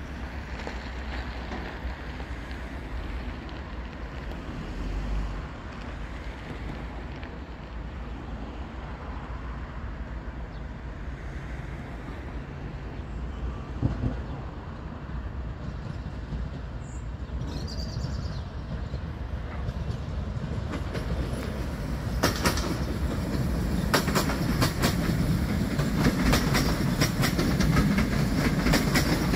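ZSSK class 660 electric multiple unit rolling through the station tracks: at first a low rumble, then from about two-thirds of the way in a growing run of clickety-clack as its wheels cross rail joints and points, getting louder as it comes near.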